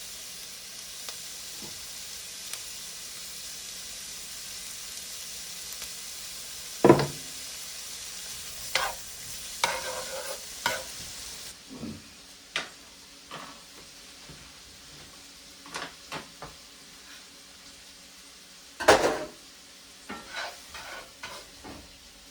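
Garlic and vegetables sizzling in a frying pan as they are stirred, with clicks and knocks of a utensil against the pan and two loud knocks, about seven seconds in and near the end. The sizzling cuts off suddenly about halfway through.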